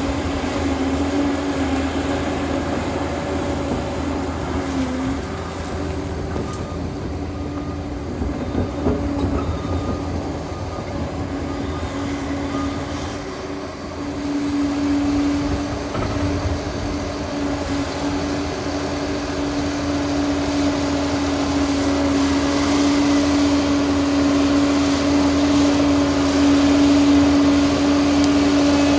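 Liebherr 746 bulldozer running, a steady machine drone over a low rumble; a strong steady hum settles in about halfway through and the sound grows a little louder toward the end.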